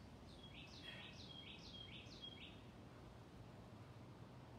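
A bird singing faintly: a quick run of about five repeated high chirping phrases, about two a second, that ends about halfway through, over faint outdoor background noise.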